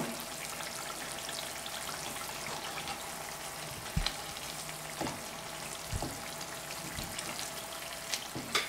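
Olive oil sizzling steadily in a frying pan as fried potato and onion are lifted out with a slotted spatula, with a few soft knocks of the utensil. Near the end a quick run of clicks begins.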